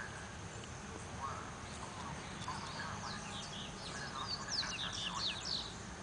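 Several birds chirping and calling: scattered short chirps, then a quick run of sharp, high, downward-sweeping notes about four to five seconds in.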